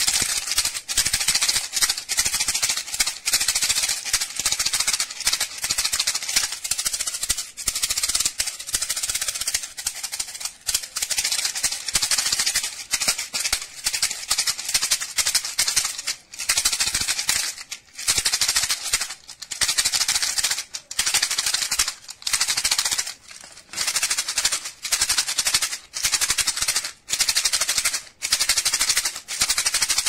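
Dried gulmohar (flame tree, Delonix regia) seed pods being shaken, their loose hard seeds rattling inside in a dense maraca-like shushing. The shaking comes in bursts with short breaks every second or two.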